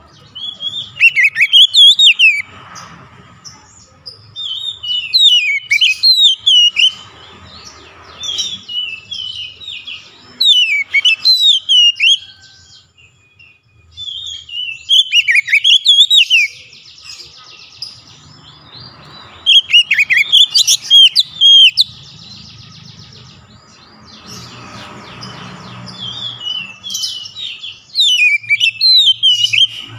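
Oriental magpie-robin singing loud phrases of rapid, varied whistled notes, about six phrases each a second or two long, with pauses of a few seconds between them.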